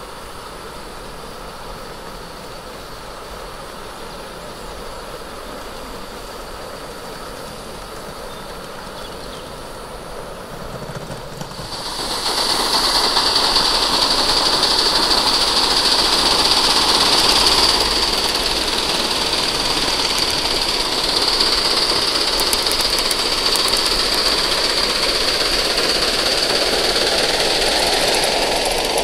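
Aster live-steam model Garratt locomotive running on garden track: a quiet steady running sound that grows much louder about twelve seconds in as the engine comes close, then carries on as a steady high hiss over a rushing noise.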